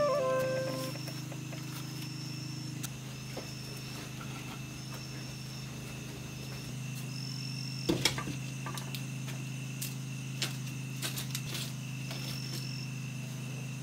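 Flute music ends in the first second, leaving insects trilling over a steady low hum. About eight seconds in there is a sharp clatter, then a few light knocks and clicks as firewood and pots are handled at a wood-fired clay hearth.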